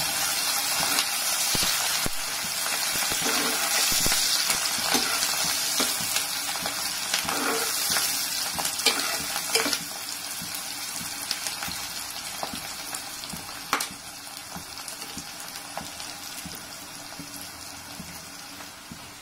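Chopped onions, green chillies and curry leaves sizzling in hot oil in a thick-bottomed metal pan, stirred with a steel spoon that clicks and scrapes against the pan, as the onions turn golden. The sizzle and stirring die down over the second half.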